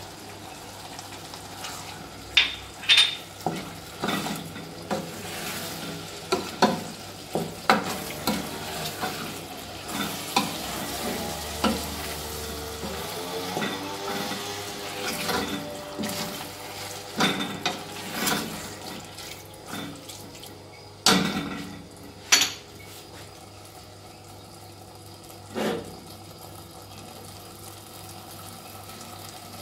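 Wooden spoon stirring rice, chicken and tomato sauce in a stainless steel pot, knocking against the pot's side and rim many times, the loudest knocks about 21 and 22 seconds in, over a low sizzle of the rice frying in oil.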